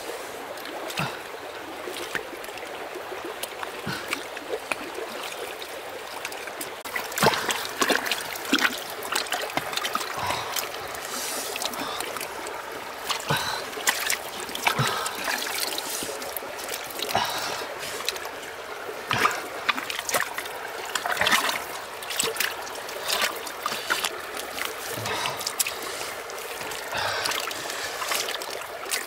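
Bare hands scooping, slapping and smoothing wet mud in shallow muddy water: irregular wet splashes and squelches, coming thicker from about seven seconds in, over a steady trickle of water.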